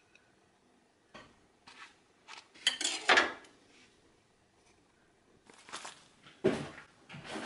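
Kitchen handling clatter: dishes and a knife knocking on a stovetop in a run of sharp knocks, loudest about three seconds in. Then, after a short pause, a cardboard egg carton full of broken eggshells is picked up, with rustling and light knocks.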